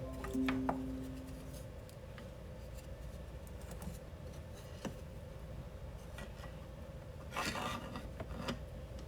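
Hands fitting 3D-printed plastic prop parts. A pitched ring fades over the first second and a half, followed by scattered light clicks and a short rubbing scrape about seven and a half seconds in.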